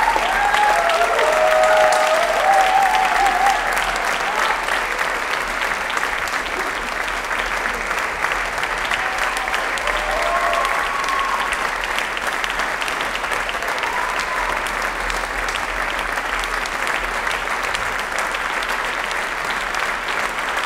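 Theatre audience applauding steadily, with a few voices cheering in the first few seconds and briefly again around ten seconds in.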